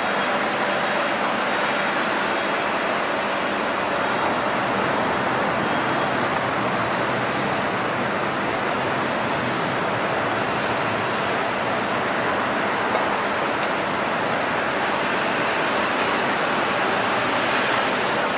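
Jet airliner engines heard across the airport as a steady, even roar and rush with no distinct whine, holding the same level throughout.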